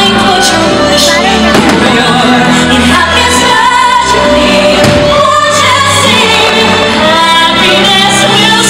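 Fireworks show soundtrack music with singing, played loud over the show's speakers, with a few firework shell bursts mixed in beneath it.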